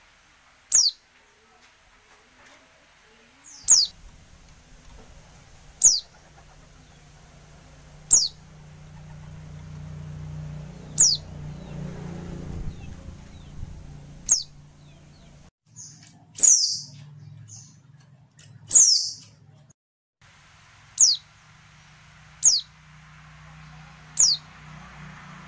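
A female white-eye (pleci) giving short, high chirps that slide downward, one about every two seconds, with two longer, louder calls a little past the middle. A faint low hum sits underneath.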